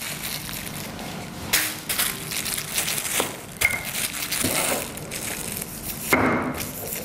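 A polythene bag crinkling and crackling under a wooden rolling pin as soft dough is rolled flat inside it on a wooden board.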